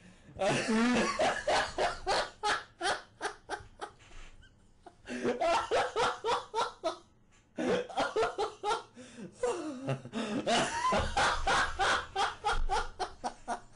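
A person laughing hard: long runs of quick, repeated 'ha' pulses, broken twice by short pauses for breath.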